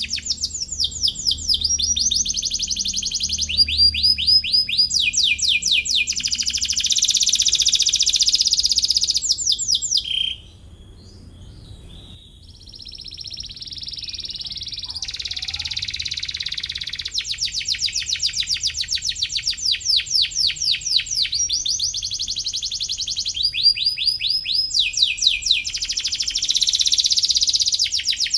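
Domestic canary singing: long, rapid trills of the same note repeated many times a second, each trill on a different pitch. The song softs and breaks off about ten seconds in, then builds again into more trills.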